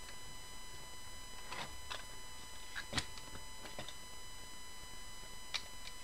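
Scattered small clicks and taps of a screwdriver and the plastic housing of a Davis VantageVUE's wind direction sensor as its two mounting screws are driven back in, with one sharper knock about three seconds in.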